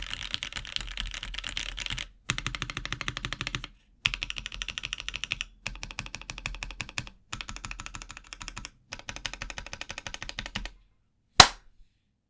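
Fast typing on a Hello M0110 gasket-mount mechanical keyboard with lubed Box Cream linear switches, PBT keycaps and no plate or case foam: quick runs of keystroke clacks in bursts of a second or two with short pauses, then the typing stops. About a second later comes a single loud, sharp click.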